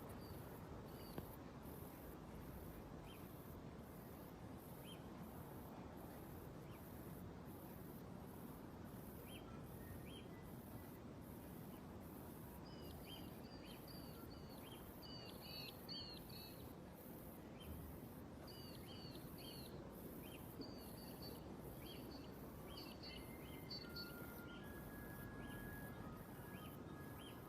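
Faint outdoor ambience: a steady background hiss with short, high bird chirps scattered through it, busiest in the middle and later part, and a very high buzz pulsing about three times every two seconds.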